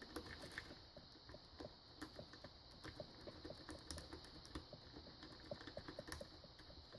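Faint, irregular clicking of a triple-peak rake rocked in the keyway of a Slaymaker pin tumbler lock under a tension wrench, the pins ticking against the rake.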